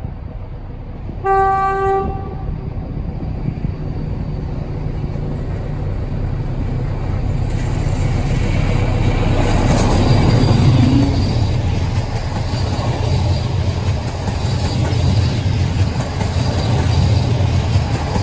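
SM42 diesel-electric locomotive giving one short horn blast about a second in. Its diesel engine then grows louder as it approaches and passes, loudest about ten seconds in, and the passenger coaches behind it roll past with a steady rumble.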